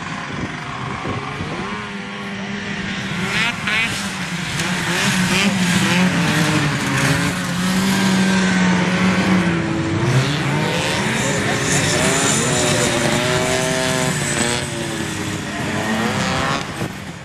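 Several vintage snowmobiles' two-stroke engines racing at once, their pitch rising and falling as they rev and pass, loudest in the middle stretch.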